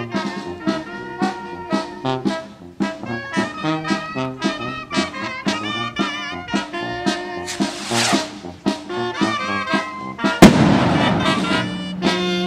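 Brass band playing a lively tune, trumpets and trombones over a steady bass. About ten seconds in a single loud firework bang cuts across the music.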